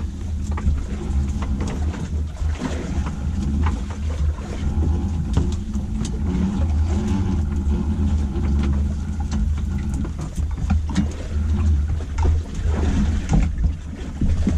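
A motor running with a steady low drone aboard a small fishing boat while a prawn trap line is hauled in, with scattered light knocks over it.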